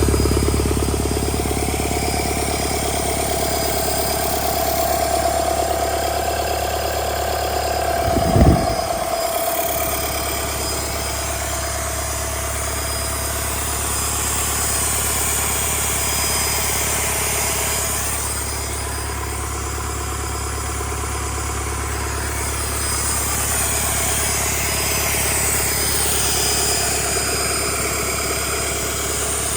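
Rebuilt Doosan D34P four-cylinder diesel engine running steadily on test after its rebuild. A brief loud low thump about eight seconds in.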